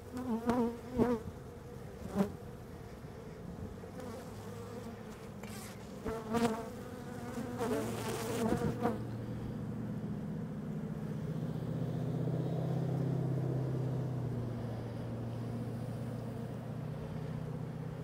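Honey bees buzzing around a colony that is being cut out of its comb. A steady hum swells from about halfway through, and in the first half several bees pass close by, briefly louder.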